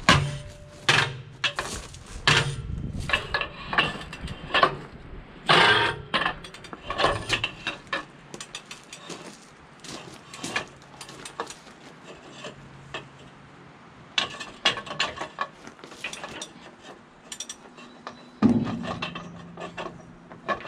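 Hand tools and steel lug nuts being worked on heavy-truck wheel studs: an irregular string of sharp metal clanks, knocks and clicks, with a brief low hum near the end.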